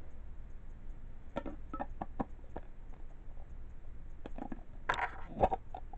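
Plastic bento box being handled as its chopstick lid is opened: light plastic clicks and taps in two clusters, about a second and a half in and again near the end, over a steady low hum.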